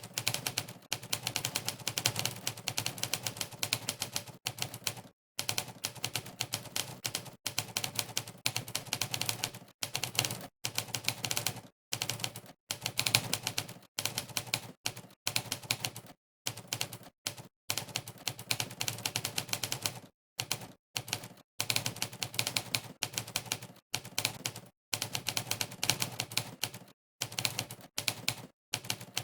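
Typewriter keystroke sound effects from a typing-test website, one clack for each key pressed. They come in fast runs broken by brief pauses of dead silence.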